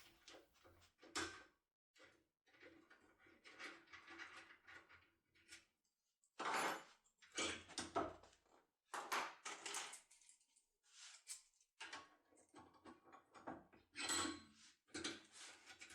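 Small metal locksmith tools, power keys, being handled and swapped: a string of separate short clicks, clinks and rattles, a few of them louder, about six seconds in and again near the end.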